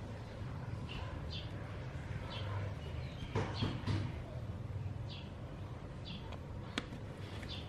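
Small birds chirping: short high chirps about once a second over a steady low hum, with a brief louder rustle about three and a half seconds in and a sharp click near the end.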